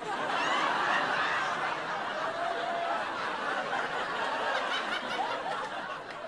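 A large live audience laughing at a stand-up comedy punchline, swelling about a second in and slowly dying down.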